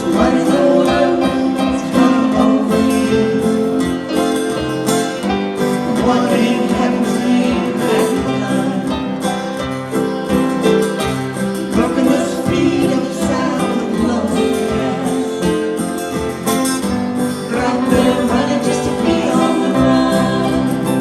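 Live acoustic folk band playing, with guitar prominent.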